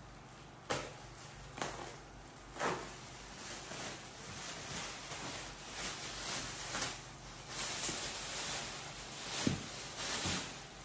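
Package being handled and opened: a handful of sharp knocks and thuds with rustling and scraping between them, the loudest two knocks near the end.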